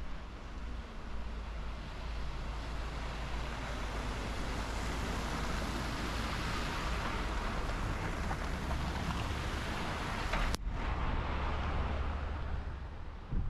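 A MAN gritter truck with a front snow-plough blade drives past, its diesel engine rumble and tyre noise swelling as it comes close and easing off near the end. There is a single sharp click about ten and a half seconds in.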